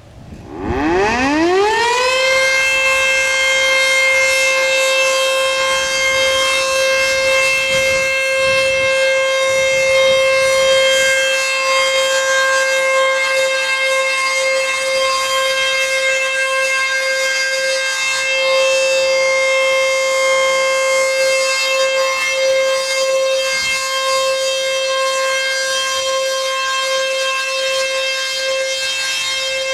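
ACA Screamer S-2 outdoor warning siren starting up: its pitch climbs quickly over about two seconds to a high steady tone, which it then holds.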